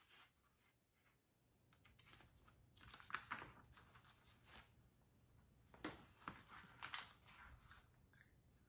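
Faint rustling and soft taps of a thin picture book's paper pages being turned and handled, loudest about three seconds in and again around six seconds.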